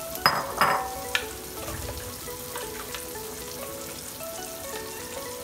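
Steel spoon scraping and stirring masala paste into onions and tomatoes frying in coconut oil in a clay pot (manchatti), sizzling. Two loud scrapes come in the first second, then a clink, with low frying noise after.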